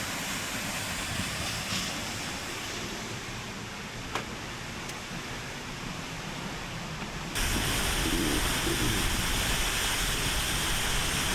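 Steady rushing of the Seljalandsfoss waterfall. About seven seconds in, the rush abruptly gets louder, with a deeper rumble.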